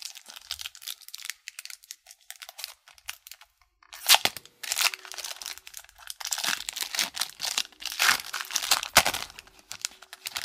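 The silver foil wrapper of a hockey card pack being torn open and crinkled in the hands. Light crisp rustling for the first few seconds, then, about four seconds in, a sharp rip followed by loud, continuous crinkling of the foil.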